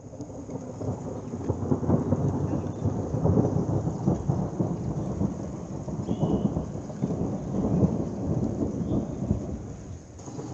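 Rolling thunder: a long rumble that comes in suddenly, swells and fades over several seconds, dips near the end and then rises again.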